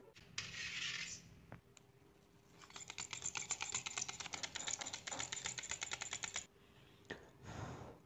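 Pin vise hand drill twisted into a dried air-dry clay wing, its fine bit grinding through with a fast, even run of small crunching ticks, with short scrapes about half a second in and near the end.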